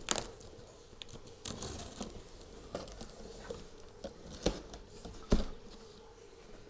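Utility knife slitting packing tape along a cardboard box, with scraping and tearing of the tape and cardboard and a few sharp taps, the loudest two about four and a half and five seconds in.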